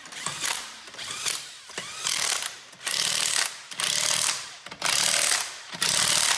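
A wrench working a bolt in repeated short bursts, about one a second, getting louder and longer toward the end.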